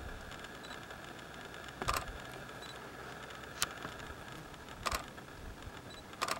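Four single sharp clicks, a second or two apart, typical of a camera shutter firing, over a steady faint hiss.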